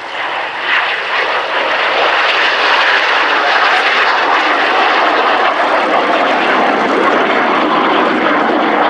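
Jet noise from a pair of BAC Jet Provost T.5 trainers, each powered by a single Viper turbojet, flying past. The sound swells over the first couple of seconds, then holds loud and steady.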